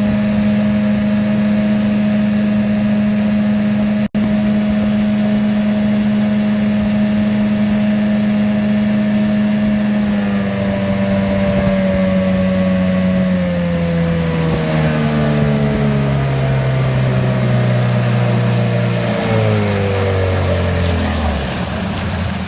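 1982 Evinrude 15 hp two-cylinder two-stroke outboard running steadily at speed, then throttled back from about halfway, its pitch falling in steps down toward idle.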